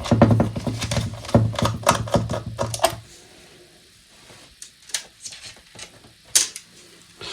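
Small screws being undone with a screwdriver: a quick run of clicks over a low hum for about three seconds, then a few quieter, scattered clicks and taps.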